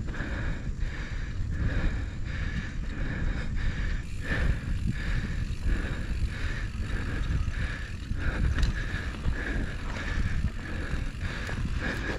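Wind buffeting the action camera's microphone while the Polygon Siskiu D5 mountain bike is ridden along. Under it is tyre and drivetrain noise, with a whir that pulses two or three times a second.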